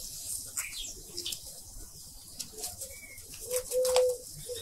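A dove cooing: one low, steady note about three and a half seconds in. Under it are light ticks and paper rustles from a small seed packet being handled.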